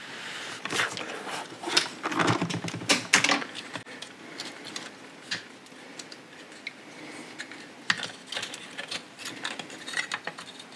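Small plastic parts of a server RAID battery pack clicking and rattling in the hands as its little circuit board and plastic case are handled. There is a dense run of clicks for the first few seconds, then scattered clicks.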